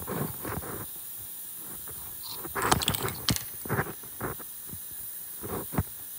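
Handling noise of a phone being positioned on a workbench: scattered rustles and light knocks, a cluster of them about halfway through and a couple more near the end, over a steady hiss.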